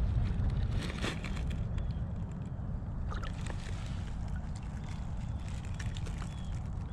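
Small splashes of water as a smallmouth bass is let go by hand in the shallows, a few sharp ones in the first second or so. Then a steady low rumble.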